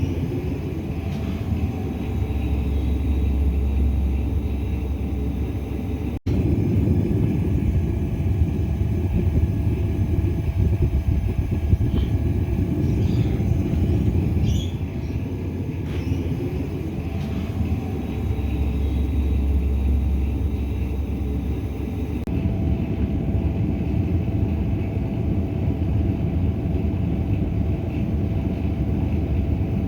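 Gas burner firing into a small ceramic-fibre-lined furnace: a steady low rumble, cutting out for an instant about six seconds in.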